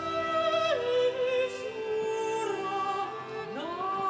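High operatic voice singing held notes with vibrato over sustained instrumental accompaniment. It steps down a little under a second in and slides up to a new held note about three and a half seconds in.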